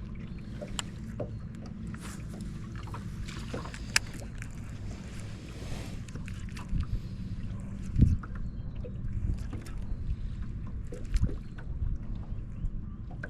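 Steady low hum of a fishing boat with scattered light clicks and knocks; one louder knock about 8 seconds in.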